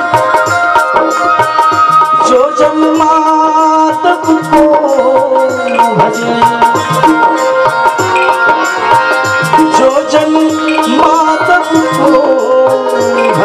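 Live Hindustani devotional bhajan music: tabla keeping a steady rhythm under sustained harmonium chords, with a wavering melody line above.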